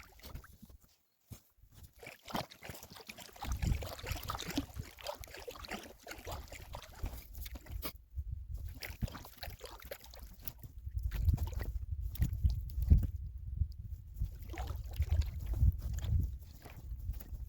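Paddle strokes splashing and water trickling and sloshing around a packraft, with stretches of low rumble, strongest in the second half.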